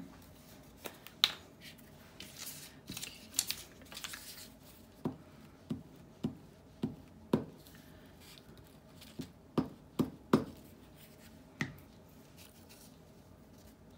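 Glue stick uncapped and rubbed across a torn book page, with paper rustling and a string of light taps and clicks on the cutting mat as the page is handled and pressed down.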